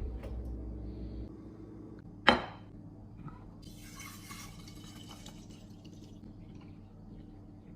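Glass containers being handled while a fridge is restocked, with one sharp clink about two seconds in and a brief hissing rush a little later, over a low steady hum.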